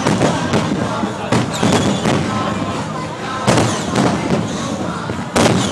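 Aerial fireworks bursting: a dense crackle broken by repeated sharp bangs, the heaviest about three and a half seconds in and again near the end, over crowd chatter.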